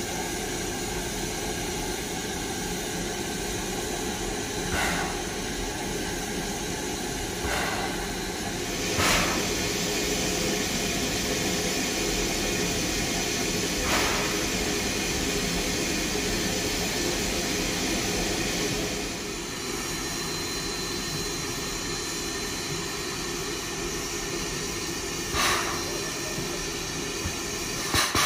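Dixiana, a Lima-built Shay geared steam locomotive, standing with steam venting in a steady hiss, broken by a few brief louder puffs, the strongest about nine seconds in.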